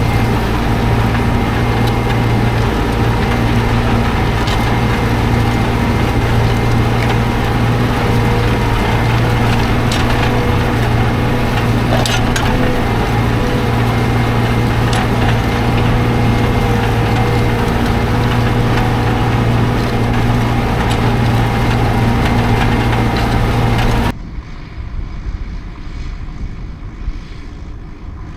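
Tractor engine running steadily at a constant pitch, with a few sharp clicks. About 24 seconds in the sound cuts abruptly to a much quieter, more distant engine-like rumble.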